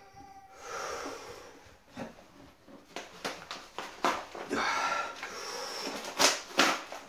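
A thick paper phone book being torn in half by hand: rustling and creaking paper, then a run of sharp rips and cracks from about three seconds in, loudest near the end as the pages tear through.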